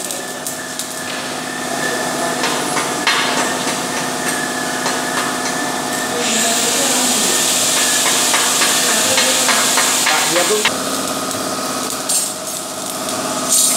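Stick (SMAW) arc welding on steel bar: the electrode arc crackles as it is struck, then burns with a steady sizzling hiss for about four seconds from around six seconds in before cutting off suddenly, with another short burst near the end. A steady hum runs underneath.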